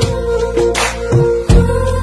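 Background music: an instrumental stretch of a Hindi-Punjabi film love song between sung lines, with held chord tones over a steady beat of low drum thumps.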